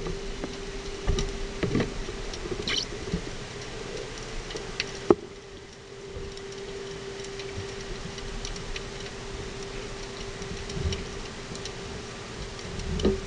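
Underwater sound picked up by a camera in its housing: a steady low hum with scattered clicks and knocks, one sharp knock about five seconds in.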